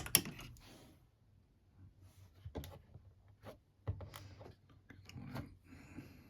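Metal clicks and scraping from a lever-lock decoding tool being worked inside a 7-lever safe lock, as the levers are lifted and tensioned. The clicks come singly at irregular intervals, with a short scrape near the end.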